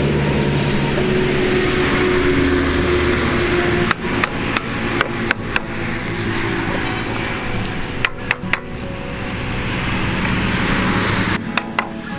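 Sharp knocks in small groups of two or three: a hammer tapping PVC pipes into their tee and elbow fittings. A steady engine drone runs under the first few seconds and fades out about four seconds in.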